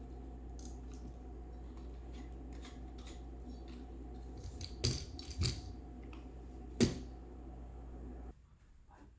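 Objects being handled: light scattered clicks and taps, then three sharper knocks about five, five and a half and seven seconds in, over a steady low hum that cuts off abruptly near the end.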